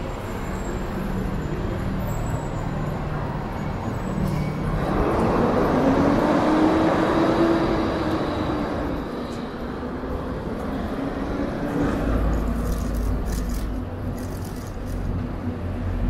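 City street traffic heard from a moving bicycle: a steady rumble of road noise, with a motor vehicle passing in the middle, its engine tone swelling, rising and then falling away. A deeper low rumble comes in about twelve seconds in.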